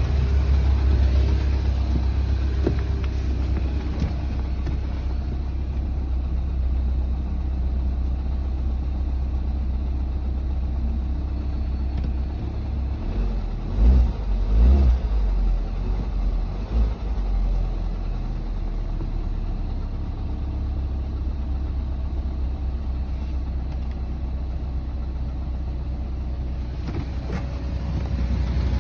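Mini Cooper S (R56) 1.6-litre turbocharged four-cylinder engine idling on a cold start, with a steady low rumble and a few louder bumps about halfway through. It has a knocking noise that the owner still hears after a timing chain replacement, though less than before.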